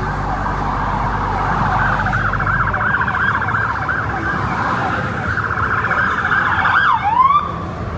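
Siren going up and down in pitch, turning into a fast warble, then swooping down and cutting off about seven seconds in. A low rumble of engines runs underneath.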